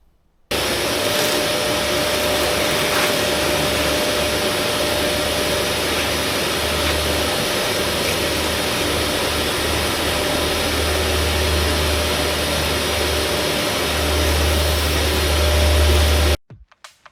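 An electric machine runs steadily with a constant whine over a low hum. It switches on suddenly about half a second in, gets a little louder near the end and cuts off suddenly.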